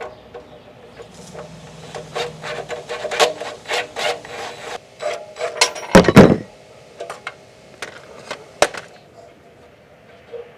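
Hand ratchet and socket clicking in short runs while loosening an exhaust flange bolt, with a louder metallic clunk about six seconds in and a few more clicks after it.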